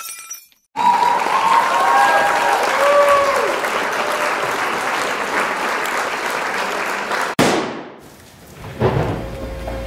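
Crowd applauding and cheering. It cuts off about seven seconds in with a falling swoosh, and music comes in near the end.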